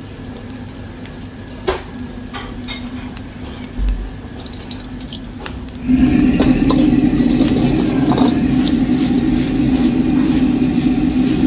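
Metal ladle scraping and clicking against a steel wok as fried rice is stir-fried, over the steady rumble of a gas wok burner. About six seconds in, the burner's roar jumps much louder, as the flame is turned up high.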